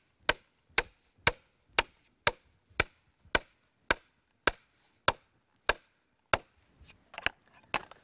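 Hand hammer driving a wooden brace stake into the ground to hold a concrete form board in place: steady, evenly spaced blows about two a second, each with a faint ring, then a few lighter, uneven taps near the end.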